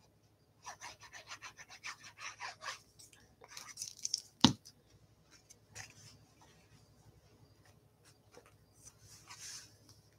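Tip of a liquid glue bottle rubbed across paper in quick, repeated strokes, then a single sharp knock about four and a half seconds in, followed by faint paper rustling as a glued panel is pressed into place.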